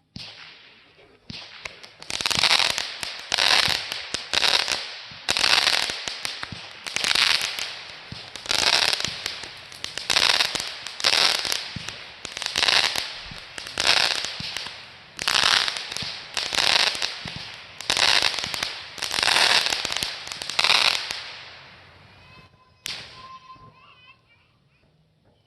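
Fireworks going off: a long string of loud bursts, roughly one a second, each with a short fading tail. They stop about 22 seconds in, and a single sharp crack follows a second later.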